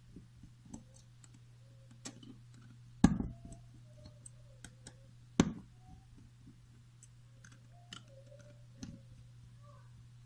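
Small plastic parts of a Hall-effect water flow sensor clicking and tapping as it is handled and unscrewed. There are scattered light clicks, two louder knocks about three and five and a half seconds in, and a few faint squeaks.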